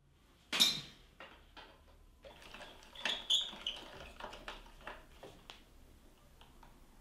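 Metal clinks and rattles of an old bicycle being handled in a repair stand: a sharp clatter about half a second in, then scattered clicks and a few short metallic pings.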